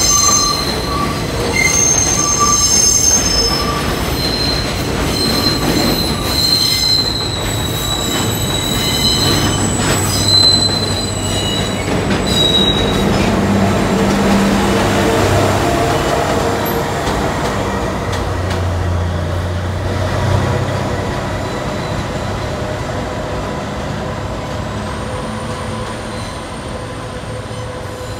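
Subway work train, a locomotive hauling flatcars, rolling slowly through an elevated station. Its steel wheels squeal on the rail with several high ringing tones, loudest in the first half. After that the wheel and rail rumble carries on and fades slowly as the train moves away.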